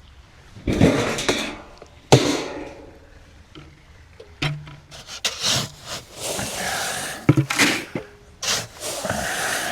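Chicken scratch grain being scooped and poured, a dry rasping rustle that comes in several bursts and is busiest in the second half.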